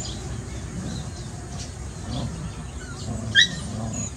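Puppies playing rough in hay, with one short, high-pitched yelp about three and a half seconds in. Small birds chirp faintly in the background.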